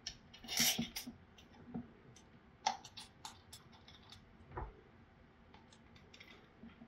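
Light, scattered metal clicks and small scrapes as long through-bolts and a long screwdriver are worked into the end plate of a small brushed DC bilge-pump motor. A duller knock comes about four and a half seconds in.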